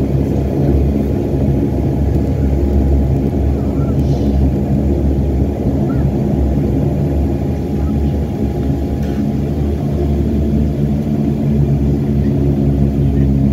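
Saab 340B+ turboprop engines and propellers droning steadily, heard inside the cabin during the landing roll on a wet runway, a stack of even low hums. A thin higher tone in the drone fades out about ten seconds in.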